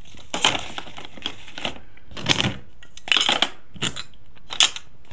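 Hard plastic toy doctor's-kit pieces clicking and clattering as they are handled: a string of sharp knocks, the loudest about two and a half and four and a half seconds in.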